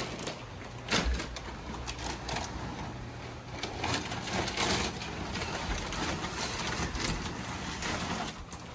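Rustling, scraping and knocking as something bulky is carried and handled by hand, with a heavier thud about a second in, over a steady low hum.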